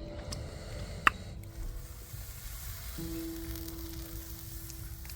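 Sizzling and crackling over a campfire, with one sharp pop about a second in, under soft background music with long held notes.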